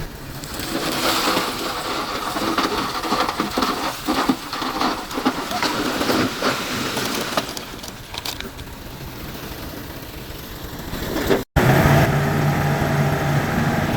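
Heavy earthmoving machinery at work: a dense, gritty rattling and scraping full of quick clicks. After an abrupt cut near the end, a heavy diesel engine runs steadily.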